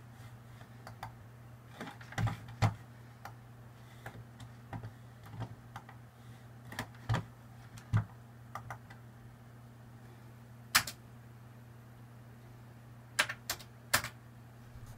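Scattered clicks of an Atari computer's mouse buttons and keyboard keys, some in quick pairs, with a few keystrokes close together near the end, over a steady low hum.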